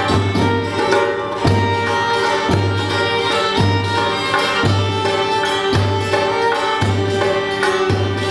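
Live folk-style music: a violin playing a melody over a deep hand-drum stroke that falls about once a second.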